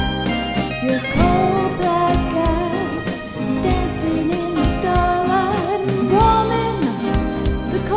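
A woman singing a song with instrumental accompaniment, holding long notes that waver in pitch.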